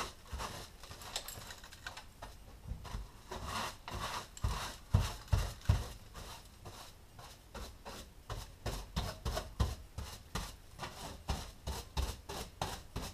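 A small hand broom brushing dirt and debris off the top of a fuel tank in quick, repeated strokes, with a couple of louder knocks about five seconds in.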